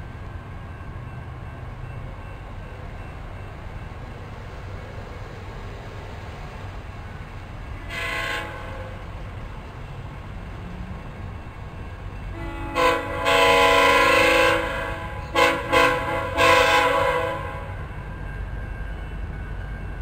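Train air horn sounding from a train not yet in view: a short blast about eight seconds in, then a long blast followed by two short ones and a final blast a few seconds later, several tones sounding together, over a steady low rumble.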